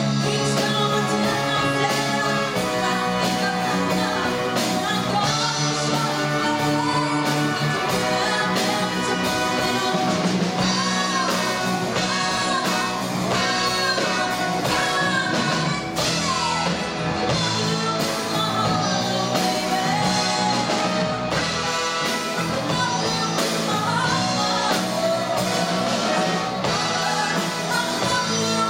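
Live rock band playing a song, with a woman singing lead over electric guitars, drums and keyboards.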